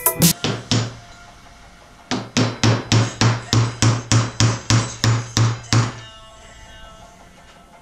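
Hammer tapping a wooden dowel into a tight pre-drilled hole in a barn-wood frame: a few blows at first, then a quick, even run of about a dozen taps, some three a second, that stops about six seconds in.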